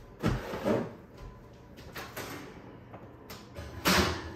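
Wall oven door pulled open with a loud clunk near the end, after a few lighter knocks of handling early on.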